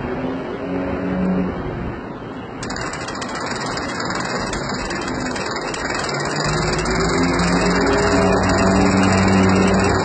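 An engine running steadily with a low hum, which comes back about six seconds in and grows louder toward the end.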